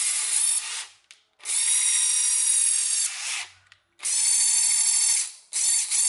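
National EZ6470 12 V cordless drill running free with no load, a steady high motor whine in short bursts of a second or two that stop and start several times as the trigger is pulled and released.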